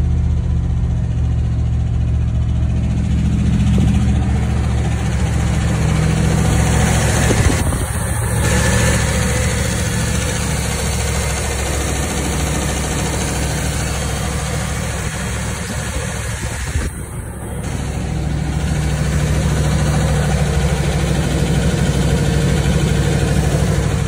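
GMC pickup's V8 engine running steadily, heard first inside the cab and then at the engine bay, with the lifter tick the owner is chasing. He traces the tick to the back of the cylinder head, cylinder 7.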